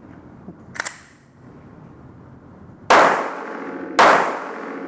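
Two pistol shots about a second apart, each loud and sudden with a lingering ring and echo, fired as a timed IDPA course of fire begins. A short sharp click comes just under a second in.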